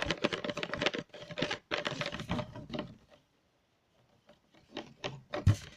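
A pencil stirring white glue and paint in a small pot, giving fast rapid tapping and clicking against the pot's sides. The stirring stops about three seconds in, and after a pause a few light taps and one sharper knock follow near the end.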